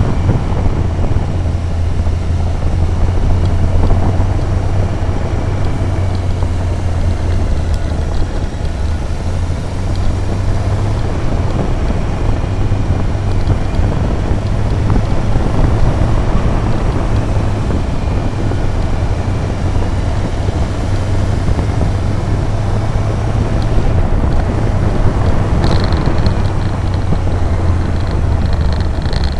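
Motor vehicle engine running steadily at road speed, heard with road and wind noise on an outside-mounted action camera. A thin, high whine comes in near the end.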